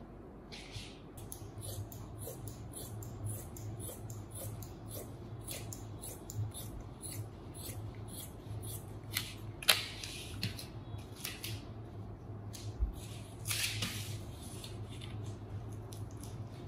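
Large dressmaking scissors cutting through a cotton sheet: an irregular run of crisp snips, with the cloth rustling as it is handled. One snip a little past halfway is sharper than the rest, and a longer burst of rustling comes later on.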